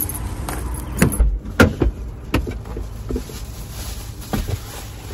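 A car door being opened and a person getting into the seat with a plastic shopping bag: a string of sharp clicks and knocks, with a heavier thump just after a second in, over a steady low rumble.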